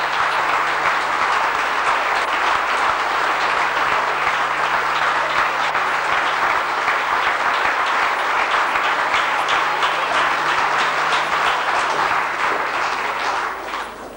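Audience applauding steadily, a dense crackle of many hands clapping that thins out near the end.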